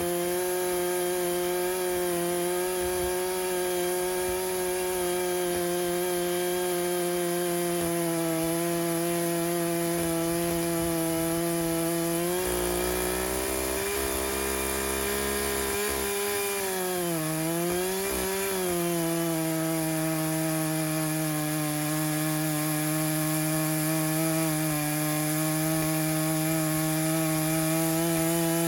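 Gas chainsaw, an Echo CS-590 two-stroke in a homemade chainsaw mill, running at high speed while cross-cutting a red oak log. The engine note holds steady for most of the time, sags briefly about two-thirds of the way in as it takes more load, then picks back up.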